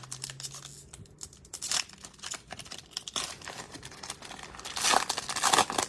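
A 2020-21 Panini Donruss basketball card pack's wrapper being torn open and crinkled, in irregular rustles that are louder near the end.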